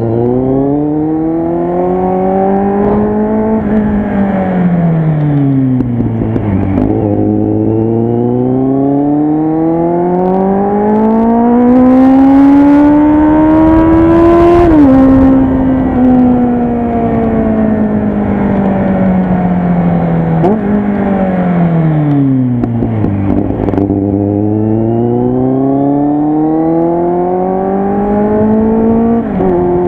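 Kawasaki Z800 inline-four engine through a loud exhaust, revs climbing under acceleration and sagging as the throttle closes, several times over. The pitch drops suddenly at gear changes about halfway through and again near the end, and the engine is loudest just before the first of these.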